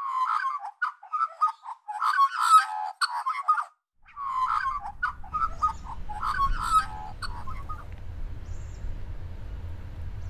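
A bird calling in four runs of quick, chirpy phrases that stop about eight seconds in. From about halfway through, a low steady rumble comes in beneath it, the sound of a freight train's diesel locomotives.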